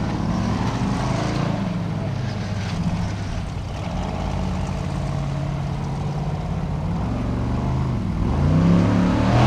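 Formula Offroad buggy's engine revving as it climbs a steep, loose gravel slope. The revs rise and fall, hold fairly steady for a few seconds, then drop low near the end and climb hard again.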